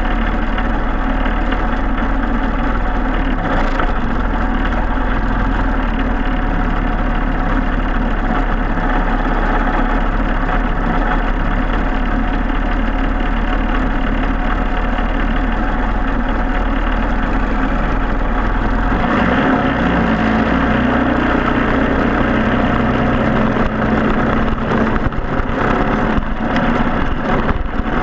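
Racing kart's single-cylinder four-stroke Briggs & Stratton Animal engine running steadily, its tone changing about nineteen seconds in.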